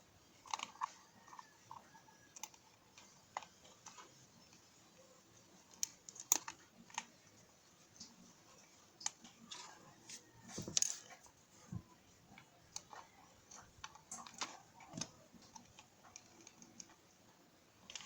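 Irregular light clicks and taps of small parts and tools being handled during a repair, with a few louder knocks.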